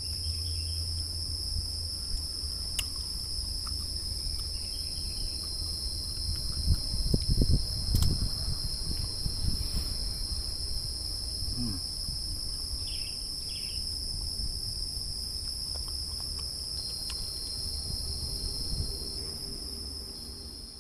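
Steady outdoor insect chorus: a continuous high buzz at two pitches. Under it runs a low rumble with a cluster of louder low knocks about seven to eight seconds in.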